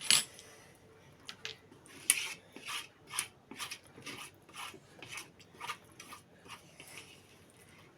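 Eating noises close to the microphone: a regular rasping stroke that repeats about two to three times a second.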